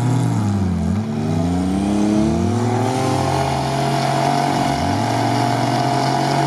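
Lifted off-road 4x4 engines revving hard under load on a climb. In the first couple of seconds the revs drop and rise again several times as the driver works the throttle. From about three seconds in, an engine holds high, fairly steady revs.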